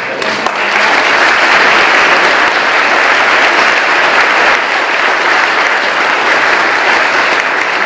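Audience applauding: many hands clapping, building up within the first second and then holding steady.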